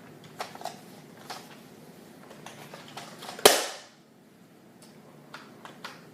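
Plastic clicks from a Nerf Rival Apollo XV-700 blaster being handled, with one loud sharp snap about three and a half seconds in.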